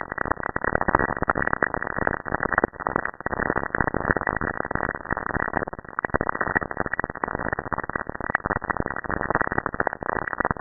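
Dense, steady crackling static with no tune or beat: Saturn's radio emissions rendered as sound.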